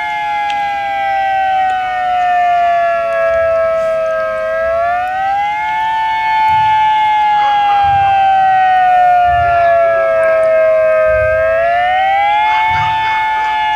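Outdoor warning siren sounding a slow wail: a loud two-note chord that slides slowly down in pitch, climbs back about five seconds in, falls again, and climbs once more near the end.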